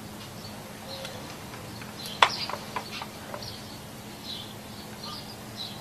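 Quiet outdoor ambience: birds chirping now and then over a low, steady hum, with one sharp click a little over two seconds in.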